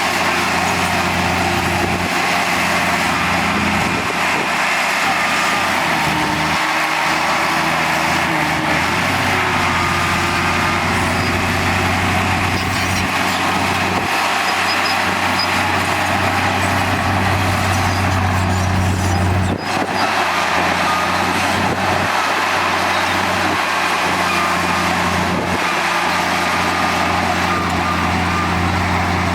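Heavy diesel engine of construction machinery running steadily under load, a constant low drone with a broad mechanical roar, dipping briefly about two-thirds of the way through.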